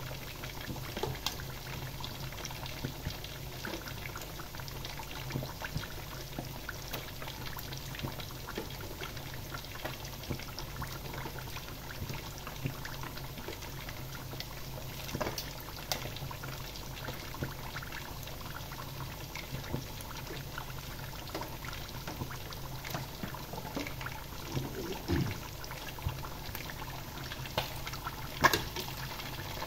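Whole quail and potato chips deep-frying in two pots of hot oil: steady bubbling and crackling of the oil over a low hum. Near the end a few sharper clicks come as metal tongs turn a quail in the pan.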